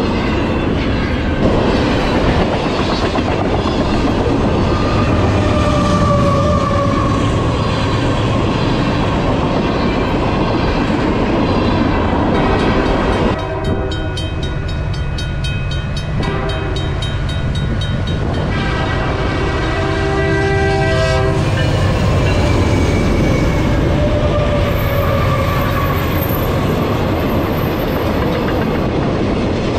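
Freight trains rolling past a level crossing, steel wheels rumbling and clattering on the rails. Partway through, a crossing bell rings rapidly and a diesel locomotive's horn sounds as a CP freight led by an SD70ACU approaches. Its cars then rumble through the crossing.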